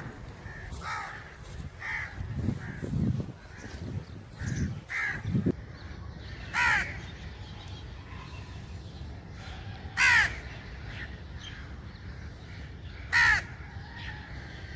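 Crows cawing: several fainter caws in the first half, then three loud single caws about three seconds apart.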